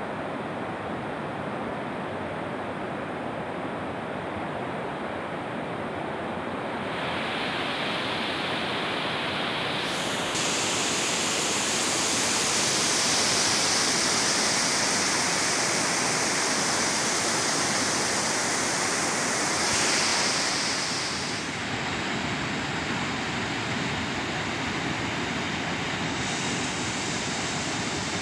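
Steady rush of water in a mountain stream cascading over rocks and a waterfall. Its hiss turns abruptly brighter and then duller several times.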